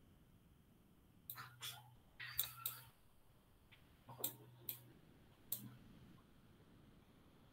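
Faint, irregular clicks at a computer, about eight in all, some in quick succession, each joined by a brief low hum.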